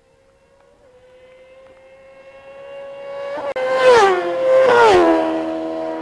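High-revving sport motorcycle engine racing toward and past, its note climbing in pitch and growing louder. A brief break about three and a half seconds in, then the pitch falls steeply twice around four and five seconds in as the bikes go by.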